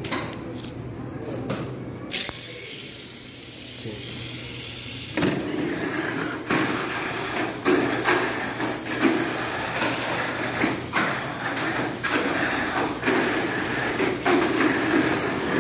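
Tamiya Mini 4WD car's small electric motor and gears whirring at high pitch once switched on, about two seconds in. From about five seconds in it runs on the plastic track, with repeated clacks of its rollers and body against the lane walls.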